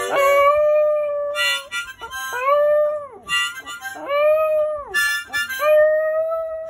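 A Lhasa Apso puppy howls along with a harmonica. Several long howls, some held level and some rising then falling, take turns with short harmonica chords.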